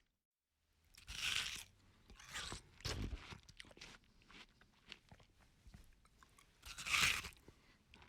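A person biting into juicy fruit, most likely watermelon, and chewing it. There are two loud crunching bites, one about a second in and one near the end, with wet chewing between them.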